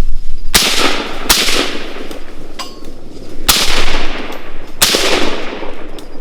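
Four rifle shots fired at hogs, in two pairs: two about a second apart, then two more a couple of seconds later. Each shot is followed by a long echoing tail.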